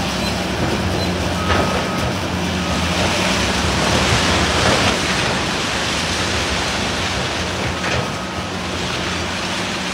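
Loud steady rushing rumble with the low hum of idling diesel heavy equipment underneath, swelling slightly about four seconds in as a high-rise apartment block collapses.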